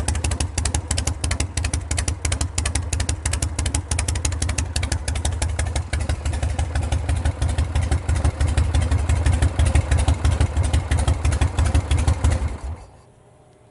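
Harley-Davidson 74-inch Shovelhead V-twin with straight pipes running evenly with a rapid exhaust beat, warming up after a stone-cold start, then switched off about a second before the end.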